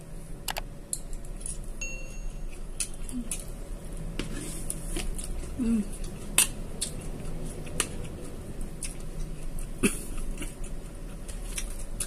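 Metal spoon clinking and scraping against a plate of rice and vegetables as someone eats, with sharp irregular clicks and faint chewing. A few brief low hums are mixed in.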